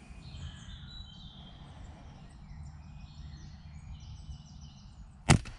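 Faint woodland birdsong, then about five seconds in a single sharp crack: the shot of a regulated pre-charged pneumatic air rifle, a Walther Rotex RM8 UC, fired at a grey squirrel on a feeder.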